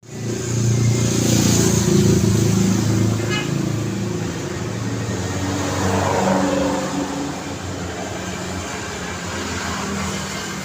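Road traffic: motor vehicles driving past with engine rumble and tyre noise, loudest about two seconds in as one passes close, then easing to a steadier rumble.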